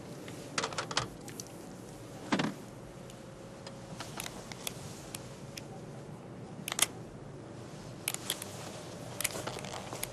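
Sharp metallic clicks and clacks as a semi-automatic pistol is handled, several separate clicks with a duller thump among them, the loudest about two-thirds of the way through. A faint steady hum lies underneath.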